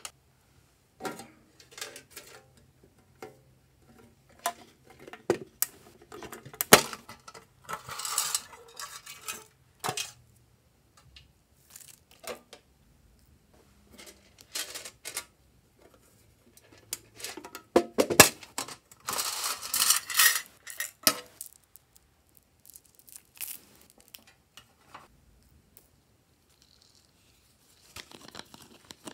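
Small plastic slime toppings, such as sequins and confetti pieces, dropped and sprinkled into clear plastic trays, giving scattered light clicks and rattles. The loudest, longest rattle comes about two-thirds of the way through.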